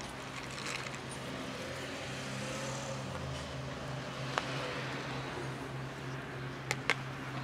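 Steady low hum of a running vehicle engine, with a few sharp clicks, two of them close together near the end.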